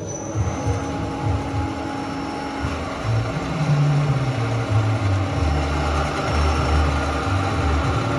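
Takamaz X-20 CNC lathe running: a steady machine hum with a faint high whine over a low rumble that swells and fades several times.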